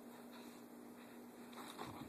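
Faint pattering and scuffling of a puppy's paws as it scampers about, a little louder near the end, over a steady low hum.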